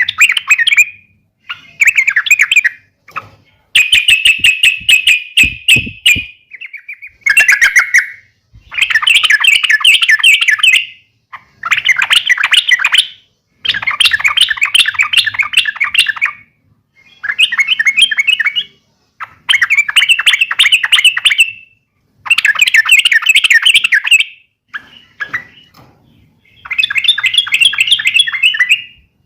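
Yellow-vented bulbul (trucuk) giving fighting calls: loud bursts of rapid chattering notes, each one to two seconds long, repeated about a dozen times with short pauses. A few sharp knocks come a few seconds in.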